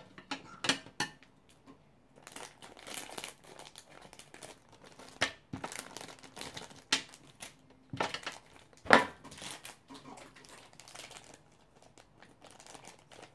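Plastic blind-bag toy packaging crinkling and rustling as it is handled and opened, with irregular crackles and a sharper snap about nine seconds in.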